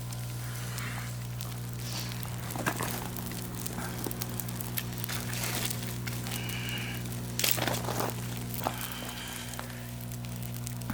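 Wood fire crackling, with scattered sharp pops, over a steady low hum.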